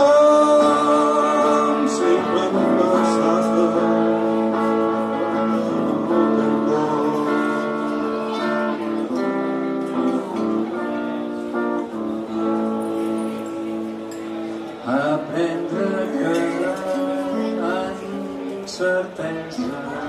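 Live acoustic guitar and a lap-played string instrument in an instrumental passage of a song, with long held notes that waver in pitch at the start and quicker plucked notes from about three quarters of the way in.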